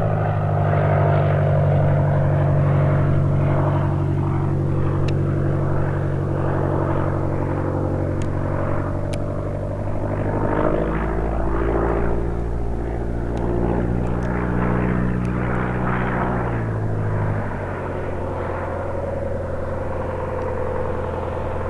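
A CubCrafters Carbon Cub bush plane's piston engine and propeller drone steadily in flight. The pitch drops a little about ten seconds in and again near seventeen seconds.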